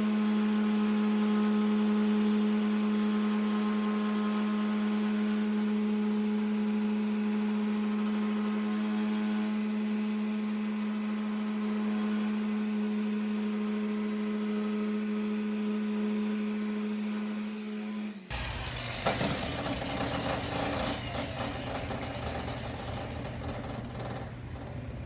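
Rupes random orbital polisher running at a steady pitch while compounding oxidized paint with a foam pad. About 18 seconds in the sound cuts abruptly to a lower, rougher hum with scraping and a few clicks.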